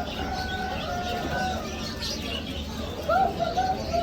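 Pigeons cooing, mixed with the chirping of small birds.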